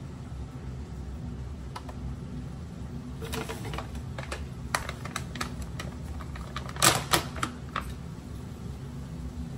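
Irregular light clicks and taps, a few in the middle and a quick cluster of louder ones about seven seconds in, over a low steady hum.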